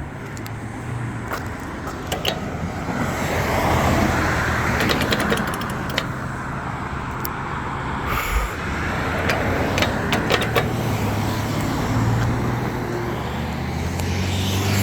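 Road traffic passing through an intersection: cars driving by, their tyre and engine noise swelling and fading twice, over a low engine hum.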